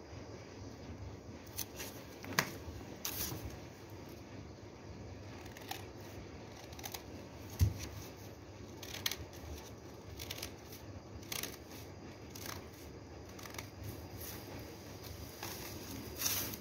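Scissors snipping newspaper, with irregular sharp snips and paper rustling, and one low thump about halfway through.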